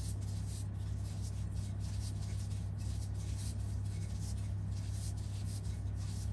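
Gloved fingers pressing and rubbing a chicken nugget into dry breadcrumbs on a plate: soft scratchy rustles, a few a second, over a steady low hum.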